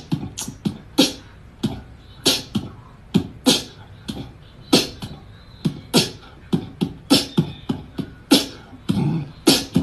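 Beatboxing: a run of sharp mouth-made clicks and low kick-like thumps, roughly two to three a second, unevenly spaced.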